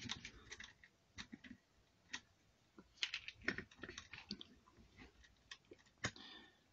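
Faint, irregular clicks and taps of a hex driver and small metal linkage parts being handled and fitted to the steering arm of a 1:18 scale RC truck, with a small cluster of clicks about three seconds in and one sharp click near the end.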